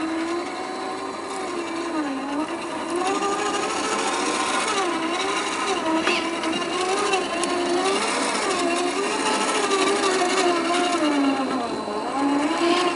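Electric motor and geared drivetrain of a 1/10-scale RC4WD Trail Finder 2 crawler whining as it climbs over rock, the pitch rising and falling with the throttle. One sharp click about halfway through.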